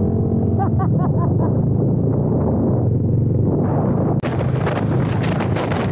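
Motorcycle engine running at riding speed, picked up by a helmet-mounted camera, with wind noise on the microphone. About four seconds in, the wind turns into a much louder rushing hiss.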